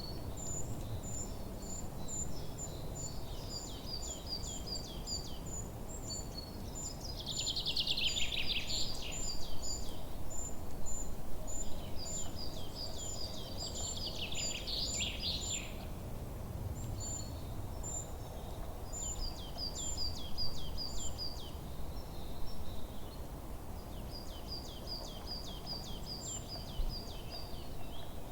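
Forest birdsong: several birds calling, with short high chirps repeating steadily and two louder, rapid song phrases about 8 and 14 seconds in, over a low steady rumble.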